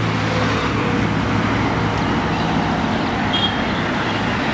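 A car engine running steadily, with road and traffic noise around it.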